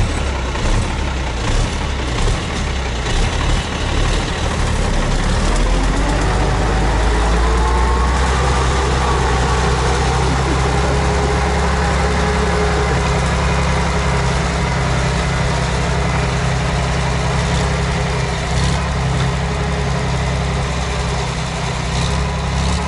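All-terrain vehicle's engine running loudly. About five seconds in it revs up, rising in pitch, then it runs on at a steady higher speed.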